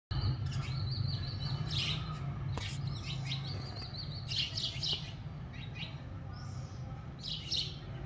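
House sparrows chirping in short runs of chirps, several times, over a steady low hum.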